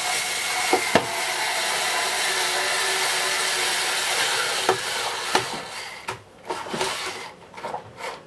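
A screw being driven home with a hand screwdriver into a vintage Hoover Senior vacuum cleaner: a steady grating rasp as the screw turns, with a few sharp clicks, lasting about five seconds. After that come scattered light clicks and taps.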